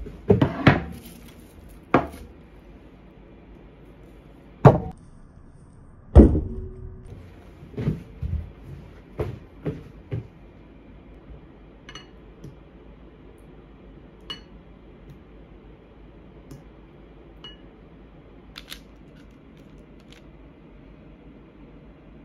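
Kitchen handling sounds: containers knocked and set down on a wooden table, loudest about six seconds in. Later come a few light clinks that ring briefly against a glass mixing bowl as canned mango is tipped in.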